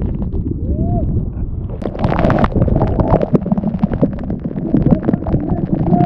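Waterfall water rushing and splashing, with wind and spray buffeting the microphone in a loud, crackling rumble.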